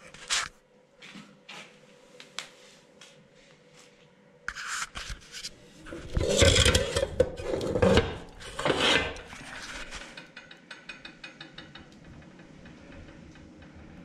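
Burner pot of a home-made waste-oil boiler being worked loose and pulled out from under the boiler, metal scraping and clinking on metal. Scattered clicks first, then a few seconds of louder scraping and clatter in the middle, then a fast, light ticking.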